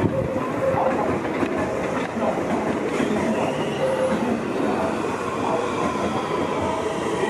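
JR West 225-series electric train running past on the track: steady running noise with wheels clattering over rail joints and short squeals now and then.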